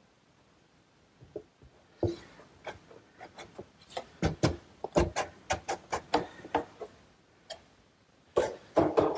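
A run of sharp, uneven knocks and clicks, two or three a second, for several seconds. Background music comes in near the end.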